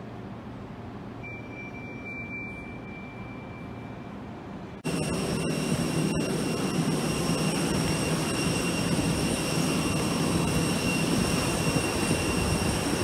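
Quiet terminal-hall room tone with a thin steady high tone lasting a few seconds. About five seconds in it cuts sharply to loud jet aircraft noise on the airport apron: a steady whine of several high tones over a constant rumble.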